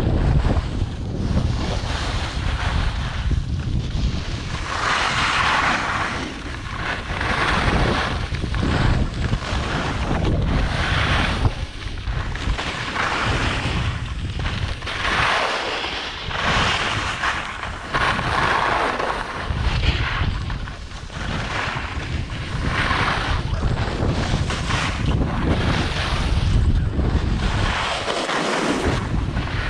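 Wind buffeting the microphone while skiing downhill. The hiss of skis on snow swells and fades with each turn, about every one and a half to two seconds.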